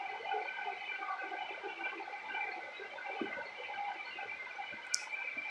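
Steady background hum of ambient noise, with a small click about three seconds in and a brief hiss near the end.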